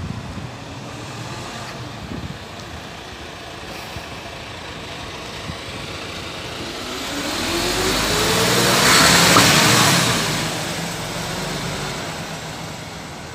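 Mercedes-Benz Citaro G C2 articulated city bus pulling away. Its engine rises in pitch as it accelerates and grows louder as it passes close, loudest about nine seconds in, then fades as it drives off.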